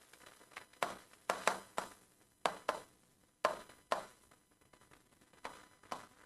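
Stylus tapping and ticking on the glass face of an interactive smart board while words are handwritten on it: irregular short, sharp taps.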